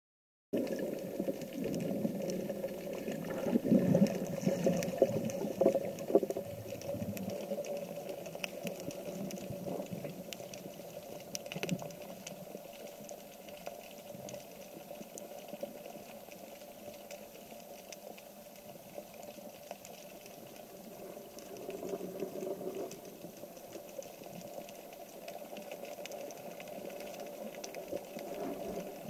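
Underwater ambience picked up by an action camera in its waterproof housing while a spearfisher swims: a continuous bubbling, crackling water noise with a steady low hum, louder during the first several seconds.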